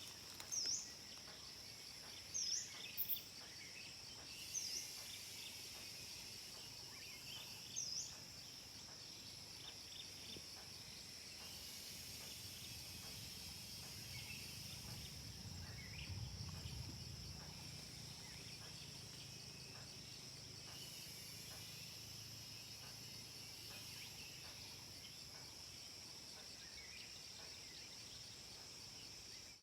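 A steady, high-pitched insect chorus drones on throughout. Over it, a bird gives a short, sharp call, dipping and rising, five times in the first eight seconds, and fainter bird chirps are scattered through the rest.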